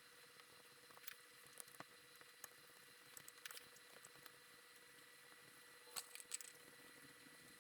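Near silence with faint scattered clicks and light scratching: a cotton swab being rubbed around the oiled potentiometer shafts of a mixing-console channel strip. A faint steady electrical whine sits underneath.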